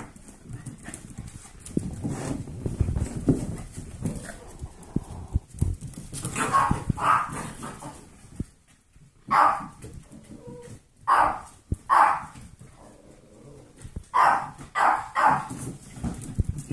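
Golden retriever mix puppies and an adult dog playing: sharp barks come in several quick bunches of two or three, between softer shuffling and paw clatter on a hard floor.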